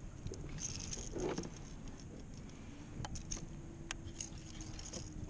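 A landing net holding a caught fish is lifted out of the water into a kayak: water patters off the net, then a few light clicks and rattles of the net and gear. A faint steady hum starts about halfway through.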